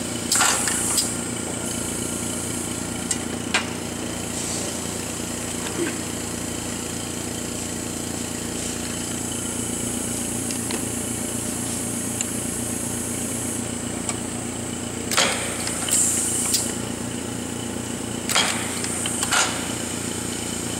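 Steady machine hum from running lab equipment, a mask aligner with its UV lamp lit, broken by a few sharp knocks and handling rustles, bunched near the start and in the last six seconds.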